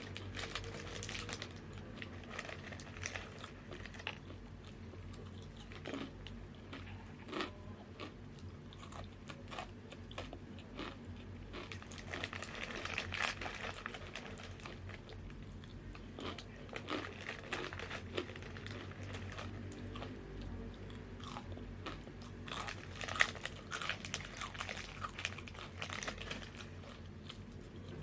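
Close-up crunching and chewing of crisp Tattoos chips: repeated bites with a dense crackle of the chips breaking between the teeth, heaviest in two spells, about halfway through and again near the end.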